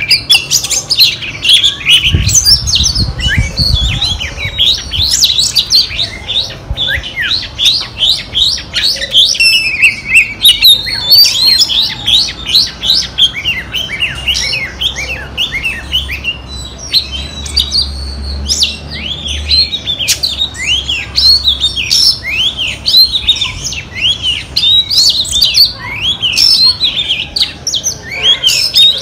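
Female oriental magpie-robin singing a fast, unbroken run of varied whistled notes and chirps, each note sweeping quickly up or down in pitch, several notes a second.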